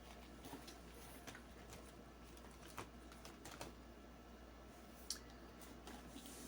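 Faint, scattered clicks and taps of small cosmetic packaging being handled, a handful at irregular intervals, the sharpest about five seconds in.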